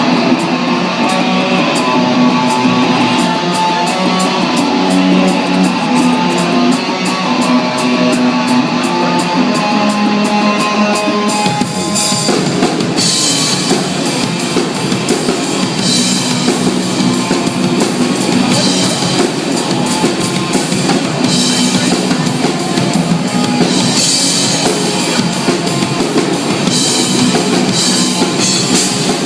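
Live rock band playing an instrumental intro: guitar over a steady ticking beat, then bass and full drum kit come in about eleven seconds in.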